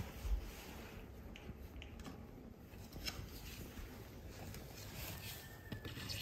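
Soft, intermittent scraping and tapping of a small metal filling knife working plaster of Paris into the gaps along a wall edge.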